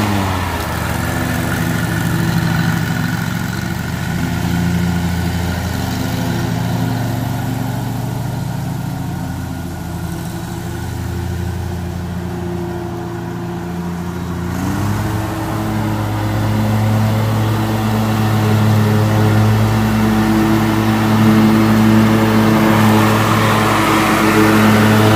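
Lawn mower engine running steadily under throttle. Its pitch dips right at the start and rises back up about fifteen seconds in, as the engine slows and then speeds up again.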